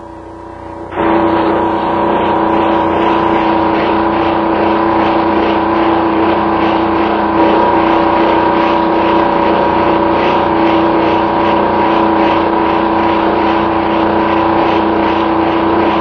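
A steady motor drone, starting about a second in, with a regular faint pulsing in its higher part.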